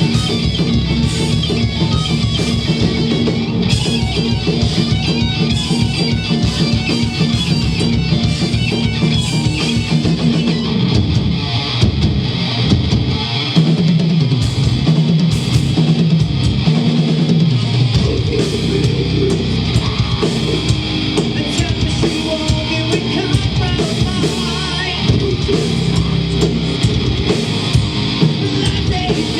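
Heavy metal band playing live: distorted electric guitars over a drum kit, with the guitar riff changing about halfway through.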